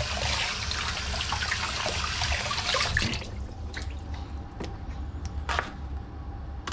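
Water pouring into a cooking pot, stopping abruptly about three seconds in, followed by a few light knocks and clinks.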